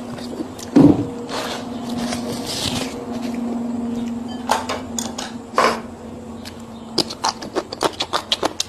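Eating sounds: a knock about a second in, then rustling and a run of quick, crisp clicks and crunches near the end. A steady low hum runs underneath.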